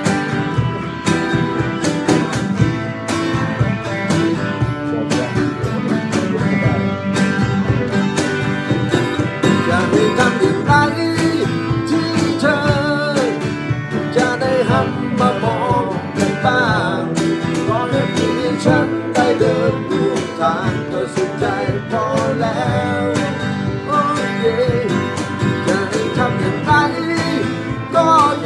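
Gibson acoustic guitar strummed and picked, with a man's voice singing a slow Thai ballad over it from about ten seconds in.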